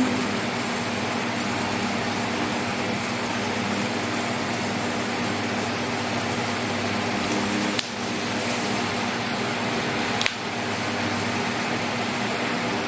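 Steady room ventilation hum, like an air conditioner running, with two faint clicks about eight and ten seconds in.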